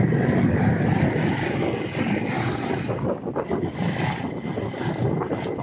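Motorcycle riding along a city road: its engine running steadily under the rushing noise of the ride.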